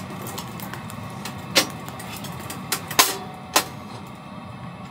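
Firewood burning with a crackle in a Pomoly camping wood stove, broken by several sharp metal clicks and clanks as the wood is pushed in with tongs and the glass stove door is shut, three of them loud.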